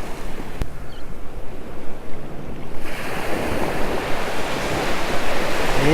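Ocean surf breaking and washing up the beach, with wind buffeting the microphone; a wave's wash swells louder about halfway through.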